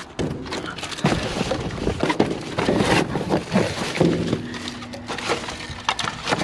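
Rummaging by hand through a box of scrap: irregular clattering and knocking of loose pieces, with rustling between the knocks.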